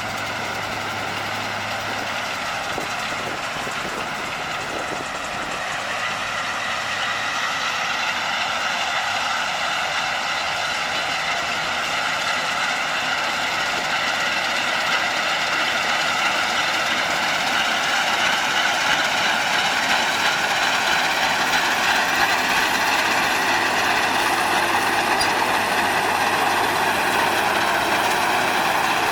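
Massey Ferguson 510 combine harvester running, a steady mechanical drone with a whine, growing gradually louder over the stretch.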